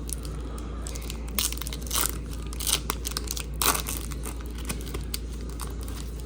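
Crinkling and tearing of a trading-card pack wrapper being opened by hand: a few short, sharp rustles over a steady low hum.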